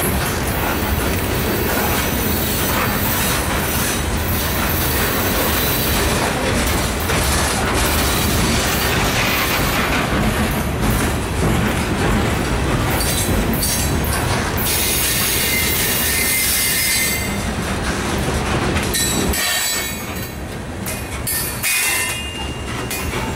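Loaded coal hopper cars of a long freight train rolling past close by: a steady heavy rumble of wheels on rail, with high-pitched wheel squeal over it. The noise eases a little about twenty seconds in, then picks up again.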